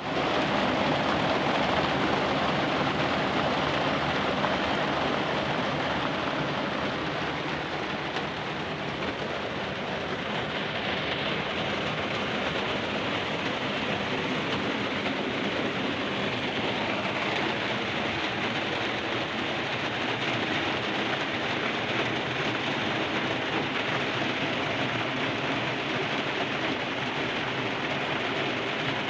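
Rain falling steadily: a dense, even hiss that does not change.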